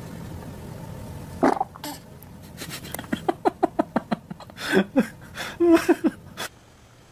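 A baby passing gas: a low rumble, a short squeak about a second and a half in, then a quick sputtering run of short pops lasting about three and a half seconds.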